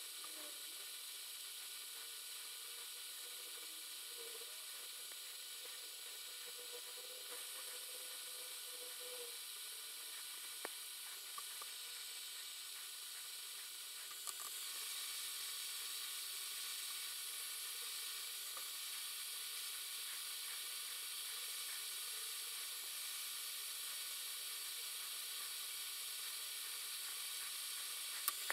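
Hot air gun of a JCD 8898 rework station blowing a steady hiss of hot air from its handle fan onto a chip, heating it to desolder it. The hiss gets a little louder about halfway through, with a few faint clicks.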